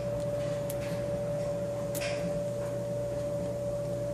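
A hook pick working the pin tumblers of an Ace 50mm laminated padlock under tension from a wrench, giving a few faint clicks, the clearest about two seconds in. Under the clicks runs a steady electrical hum.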